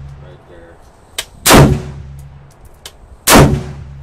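Two shots from a 7.5-inch-barrel 5.56 AR-15 pistol fitted with a Troy Claymore muzzle brake, a little under two seconds apart, each a loud blast with a fading ring after it.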